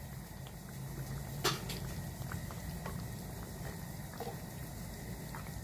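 Mussels cooking in tomato sauce in a tajine: steady bubbling with scattered small pops, and one sharper click about a second and a half in.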